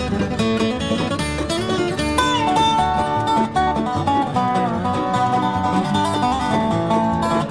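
Instrumental bluegrass: a Dobro plays a lead line that slides up and down in pitch, over banjo, acoustic guitar and bass.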